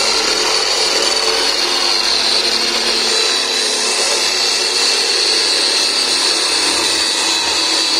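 Electric jigsaw with a plastic-cutting blade running steadily with a high whine as it saws through the top of a plastic barrel.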